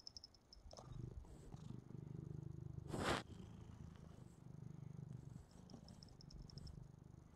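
Domestic cat purring right at the microphone: a steady low rumble, with one brief loud whoosh about three seconds in.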